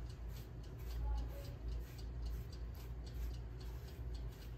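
Silicone pastry brush dabbing and spreading oil over a thin rolled-out maida dough round: quick soft pats, several a second, over a low steady hum.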